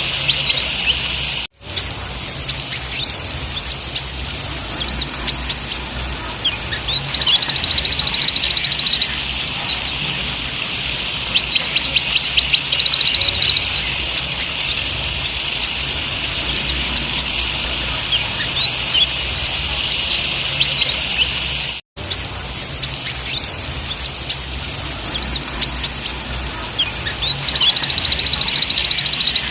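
Kolibri ninja sunbirds calling: a steady stream of sharp, high chips and ticks broken by several rapid, buzzy high trills lasting one to four seconds. The sound cuts out for a split second twice, about a second and a half in and about 22 seconds in.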